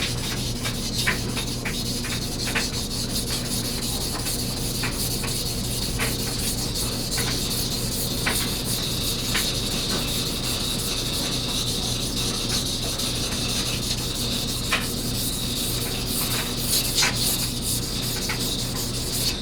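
Steel knife blade being ground on a King 1000-grit water stone: continuous wet rasping strokes with faint irregular ticks, the blade held at a very low angle to thin and reprofile the edge.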